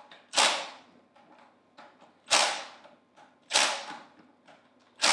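Cordless impact tool giving four short bursts on the bolts of a Hypro D50 diaphragm pump's air-accumulator cap, tightening each bolt in turn as it goes round the cap. Faint clicks between the bursts.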